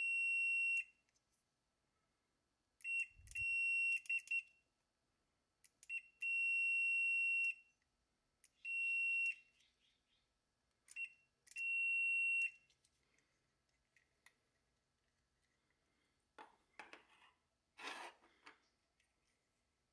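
Fluke digital multimeter's continuity beeper sounding a steady high beep again and again, each beep lasting from a fraction of a second to about a second and a half, as a 9-volt battery energises an automotive relay and its contacts close. About four seconds in, the beep comes as a few short broken chirps. Near the end there is soft clatter as the relay is handled and set down.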